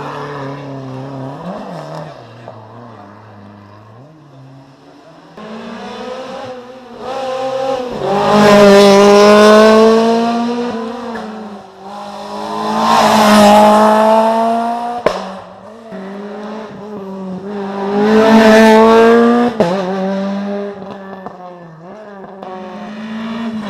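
Rally car engine at full throttle, climbing in pitch in three loud surges that each drop back sharply, as at gear changes, with a sharp crack at two of the drops.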